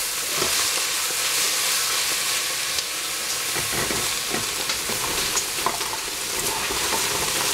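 Eggplant chunks sizzling in a stainless steel pot, a steady hiss. Partway through, a wooden spatula stirs them with short scrapes and knocks against the pot.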